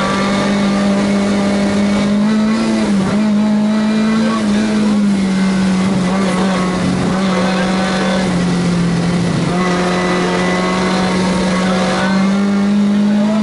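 Competition car's engine running hard at high, nearly steady revs, heard from inside the cabin. The pitch dips briefly about three seconds in and again near ten seconds.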